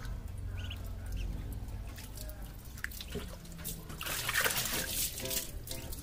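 Muscovy ducklings splashing in a shallow metal tray of water, with the loudest burst of splashing and flapping about four seconds in. A few short, high peeps come earlier.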